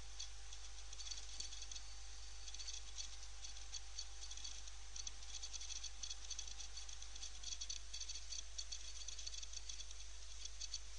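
Faint steady background noise: a crackling hiss peppered with small irregular clicks, over a low hum and a faint steady whine that drops slightly in pitch about seven seconds in.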